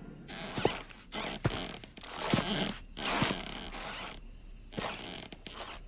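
Cartoon sneaking footsteps: a run of scratchy, swishing tiptoe steps a little under a second apart, fading out after about four seconds, with a few faint ticks near the end.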